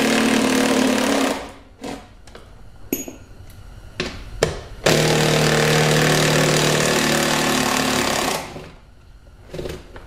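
Power tool running on tight, stuck bolts inside a car door in two long runs, the second starting about five seconds in and lasting some three seconds, with a few light clicks of metal in between.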